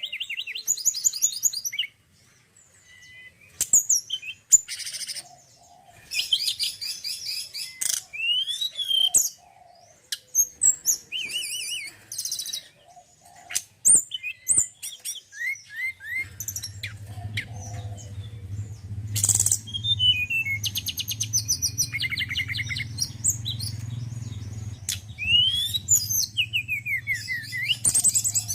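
Male tledekan gunung singing: a varied run of sharp chirps, quick trills and short gliding whistles, broken by brief pauses. A steady low hum comes in about halfway through.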